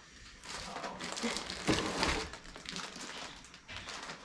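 Packaging rustling and crinkling as items are dug out of a box, loudest a little under two seconds in.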